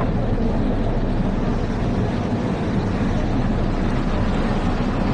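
Seoul Metro subway train heard from inside the passenger car: a steady low rumble with no distinct knocks or changes.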